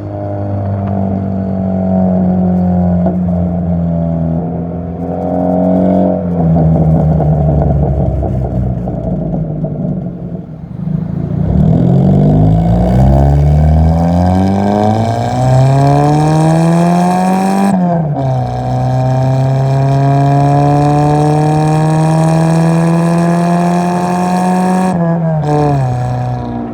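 2000 Honda Civic hatchback's engine through a cut-open eBay cat-back exhaust with home-welded baffles, under hard acceleration. Revs sag and dip for the first part, then climb steeply, fall sharply at an upshift about two-thirds through, climb again more slowly in the next gear, and fall again near the end.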